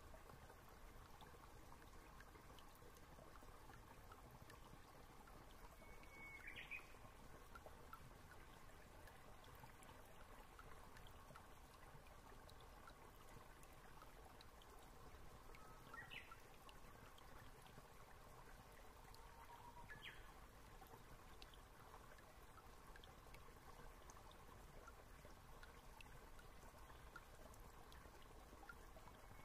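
Near silence: a faint steady hiss, with a few faint short chirps about a quarter of the way in and again past the middle.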